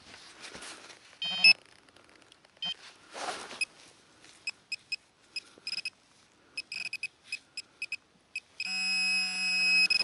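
Handheld metal-detector pinpointer beeping in short electronic pulses as it is worked through loose dug soil, then going into a continuous buzzy tone near the end as it closes on the metal target.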